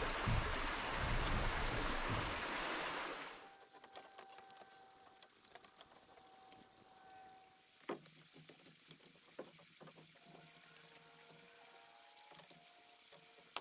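A steady rushing noise with low buffeting breaks off abruptly about three seconds in. Quiet outdoor ambience follows, with scattered light taps and one sharper knock about eight seconds in.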